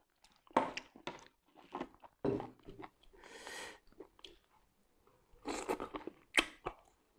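Close-miked mouth sounds of someone eating a sauce-coated octopus tentacle: scattered short wet chewing clicks and lip smacks, a brief hiss about halfway through and a denser run of clicks near the end.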